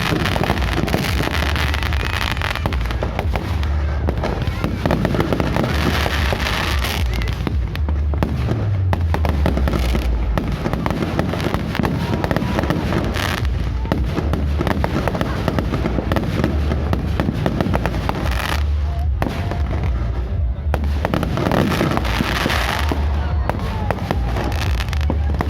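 Fireworks bursting and crackling in quick succession without a break, with music and voices underneath.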